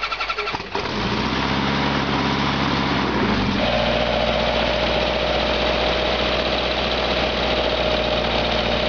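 Rotax 912ULS flat-four aircraft engine running steadily, its note changing about three and a half seconds in.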